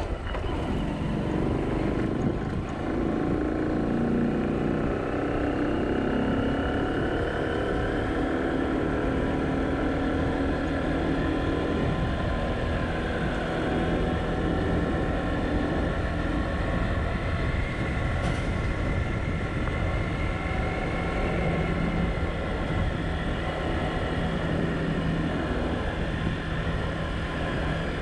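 A vehicle's engine running with road noise as it travels, the engine's pitch slowly rising and falling.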